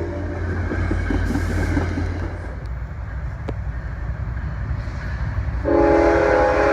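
Diesel locomotive rumbling on the rails, then a little over two-thirds of the way in its multi-chime air horn starts suddenly and holds a loud chord.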